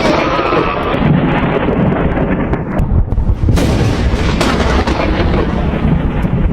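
Loud dramatic booming sound effects, continuous rumbling like thunder or explosions, with two sharp cracks about three and a half and four and a half seconds in.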